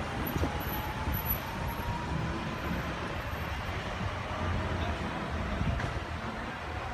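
Sydney Trains M-set (Millennium) electric train pulling out of the station and moving away: a steady low rumble of wheels on rail, with a faint, slowly rising whine.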